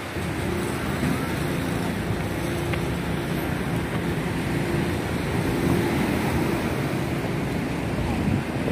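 Street traffic noise: a steady hum of vehicle engines around a taxi rank, with wind rumbling on the microphone.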